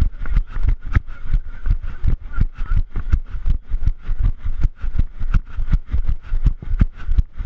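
A runner's footfalls: heavy thuds, about three a second, with the body-worn camera jolting at each stride.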